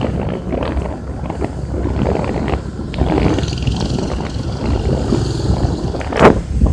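Strong wind gusting and buffeting the microphone: a low rumbling rush that rises and falls, with one sharp gust a little after six seconds in.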